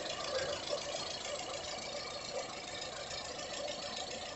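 Volkswagen Voyage 1.0 engine idling steadily, with no squeal or rumble from its freshly replaced accessory belt and bearing.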